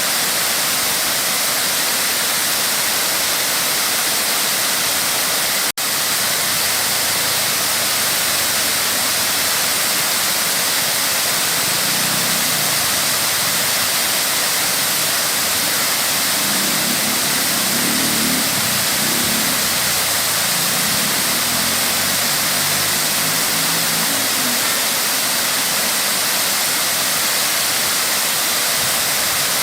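Waterfall rushing with a steady, loud hiss of falling water. The sound cuts out for an instant about six seconds in, and in the middle a faint low hum rises and fades under the water noise.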